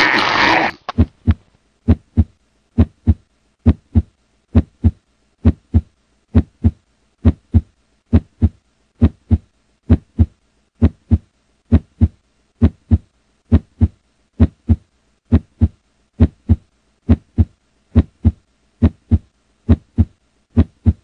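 A loud noisy sound cuts off about a second in. Then come steady paired low thumps, a lub-dub heartbeat-like rhythm repeating about once a second.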